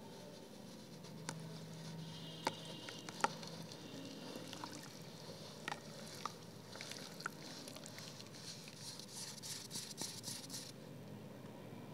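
Soft wet cement block crumbled by hand, gritty crumbs and grains pattering into a basin of water, with scattered sharp cracks. The crumbling grows denser and more crackly in the last few seconds, then stops abruptly.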